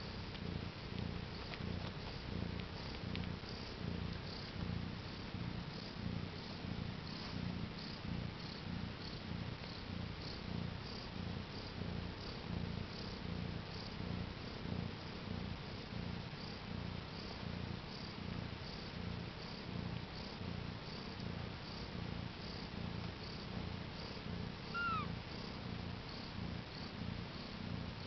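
Mother cat purring steadily while her newborn kittens nurse, a low rhythmic purr that pulses about twice a second with her breathing. One short, high squeak comes near the end.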